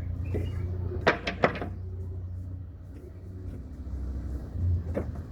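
Sharp knocks from work on pallet wood being stripped of its nails: two loud ones about a second in and another near the end, over a steady low hum.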